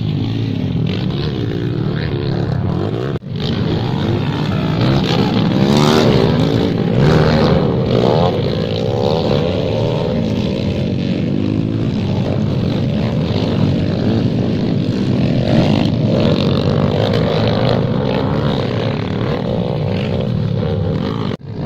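Motocross dirt bike engines revving, their pitch rising and falling again and again as the bikes accelerate and ride past. The sound breaks off briefly about three seconds in and again near the end.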